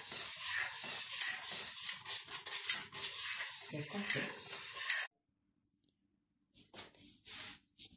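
A spoon stirring and scraping thick custard in a steel pot, with quick clinks against the metal. It cuts off abruptly about five seconds in, leaving only a few faint brief sounds.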